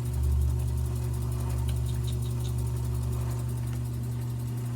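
Modified mini lathe motor running steadily with a low, even hum, a few faint light ticks about two seconds in.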